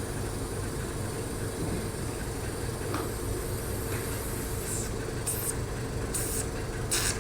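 Hydrodermabrasion machine's vacuum pump running steadily with a low hum, while the handle draws water and suction. Short hisses come from it about five, six and seven seconds in.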